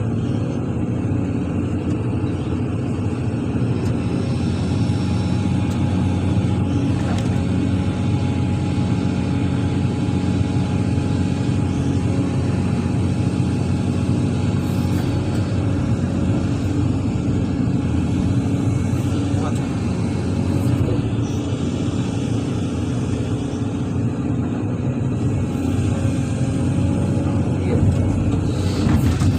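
Heavy diesel engine of an excavator running steadily.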